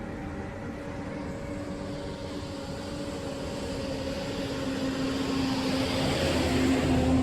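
Motor vehicle engine running with a steady hum, growing louder over several seconds as it draws near.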